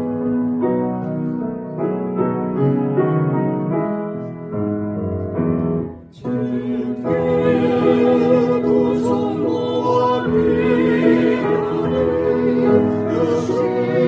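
Piano playing alone for about six seconds, then a mixed vocal quartet of men's and women's voices comes in singing a hymn in harmony over the piano accompaniment.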